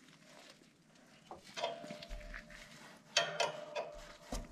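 A 14 mm wrench clinking against a steel brake-linkage turnbuckle as it is turned: scattered short metallic clicks with a brief ringing, starting about a second in and bunching into quick clusters.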